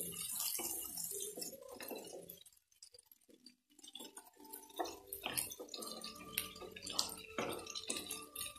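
Chicken pieces and chopped onions frying in a nonstick pan, with a faint sizzle and a plastic spatula clicking and scraping against the pan as the pieces are turned. A short lull comes about two and a half seconds in before the knocks pick up again.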